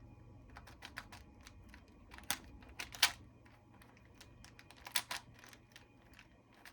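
Plastic layers of a Rubik's-style puzzle cube being turned by hand, an irregular run of sharp clicks and snaps.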